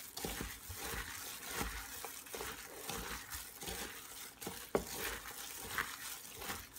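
A plastic-bagged hand squeezing and mixing sliced onions wet with tamarind water and ground spices in a plastic bowl: irregular wet squishing with plastic crinkling and a few light knocks.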